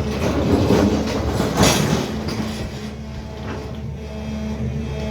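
SANY excavator's diesel engine running with a steady hum, with a louder stretch of clattering, rushing noise in the first two seconds.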